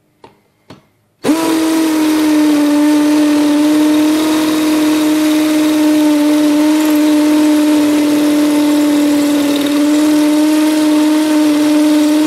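Kimo 20V cordless hammer drill in hammer mode at top speed, boring a masonry bit into a cement brick. It starts about a second in after a couple of small clicks, then runs at a steady pitch, with a harsh noise from the hammering bit over the motor hum.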